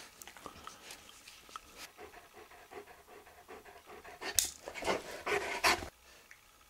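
A run of about four quick, loud breaths in and out, packed into a second and a half, after a few faint clicks.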